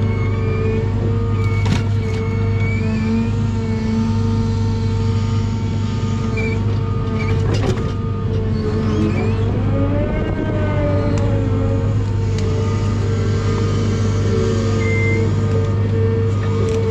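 John Deere 1010G forwarder's diesel engine running steadily under load with a whine from the crane's hydraulics, whose pitch rises and falls about ten seconds in as the crane moves. A couple of sharp knocks about two seconds in and again near the middle.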